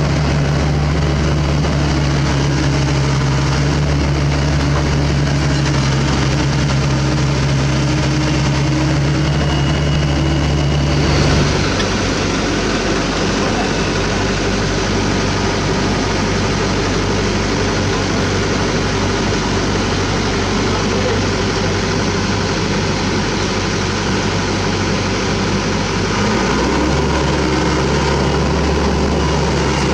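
Diesel engine of a Sany SY75 mini excavator running steadily as it digs and loads. The low engine note drops abruptly about a third of the way in and comes back strongly near the end.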